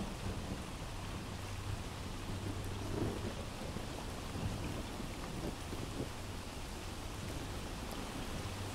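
Steady rain with low rumbles of thunder that swell now and then, an ambient storm sound bed.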